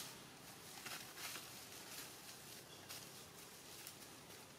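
Faint, irregular crackling and rustling of dry leaf litter as macaque monkeys scramble over it, in a few short clusters.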